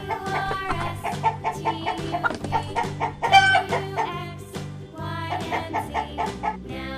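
A hen clucking in short repeated calls over cheerful children's background music.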